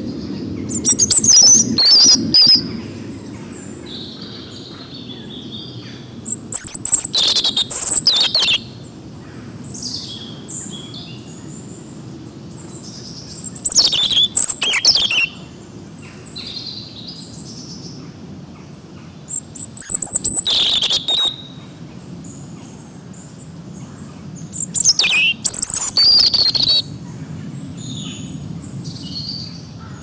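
European robin singing: five loud phrases of high, thin warbles and trills, each about two seconds long, coming roughly every six seconds, with fainter bird calls in the gaps between.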